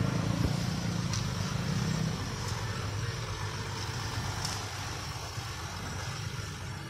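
Road traffic: vehicle engines in slow traffic passing close by, with a loud low engine hum for the first two seconds that then fades, leaving steady traffic noise and a few faint clicks.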